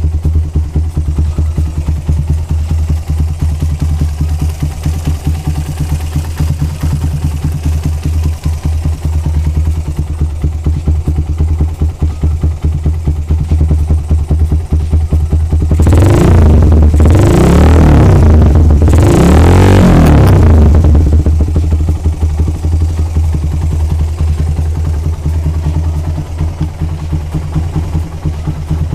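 Suzuki Satria FU motorcycle's 150 cc single-cylinder four-stroke engine running through a Lone Rider racing exhaust, idling with a steady pulsing beat. Past the middle it is revved up twice in quick succession, then drops back to idle.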